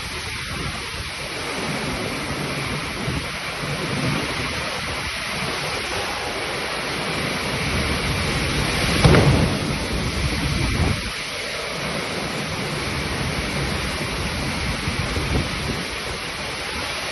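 Heavy rain falling steadily, with a louder rumble of thunder about halfway through.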